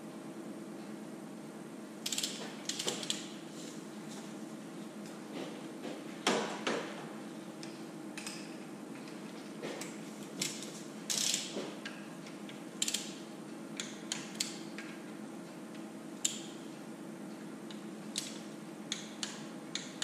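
Hand ratchet wrench clicking in short irregular runs, with light metal tool clinks, as the flywheel housing bolts on a Detroit Diesel 3-53 are tightened and torqued down.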